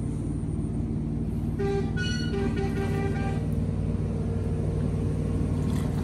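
A motor running steadily with a low, even hum. A brief higher tone comes in over it at about two to three seconds.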